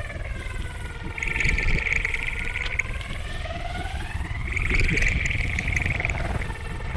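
Experimental electronic noise music: a low rumble under gliding tones that dip and rise again, with a harsh, hissing high band swelling in and out twice.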